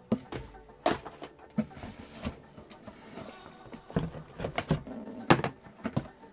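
Football boots and cardboard packaging being handled: a run of irregular knocks, bumps and rustles as a pair of boots is lifted out of a shipping box.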